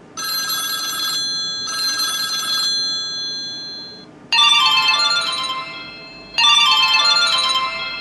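Samsung Wave S8500 ringtones playing: a short ringing phrase sounds twice, then a different, brighter ringtone pattern starts about four seconds in and repeats.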